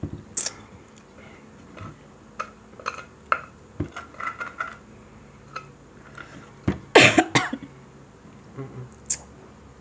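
Eating at a table: a spoon and fork clicking and scraping against plates in scattered short knocks, with one loud short burst about seven seconds in, followed by a second, smaller one.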